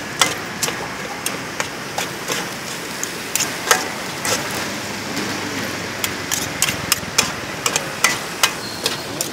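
Metal spatula clinking and scraping against a metal wok as corn kernels are stir-fried, irregular clinks about two a second over a steady hiss.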